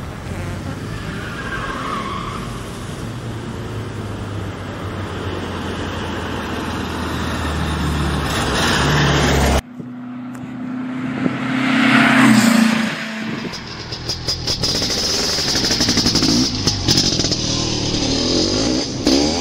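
Motor vehicle engine running steadily, revving up and then cutting off abruptly about ten seconds in. A second engine sound follows, swelling loudest a couple of seconds later.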